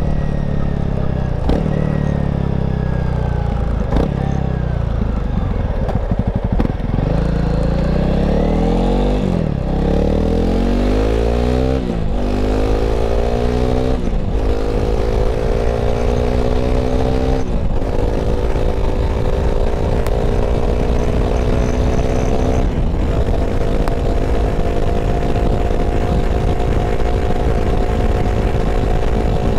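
Honda CRF300L's single-cylinder four-stroke engine under way, pulling up through the gears: the engine note rises in pitch and drops sharply at each of about five upshifts, then settles into a steady cruise for the last several seconds.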